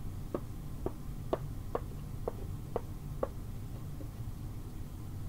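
Seven light wooden knocks, about two a second, as a small carved wooden figure is tapped step by step up the mountain piece of a wooden storytelling set.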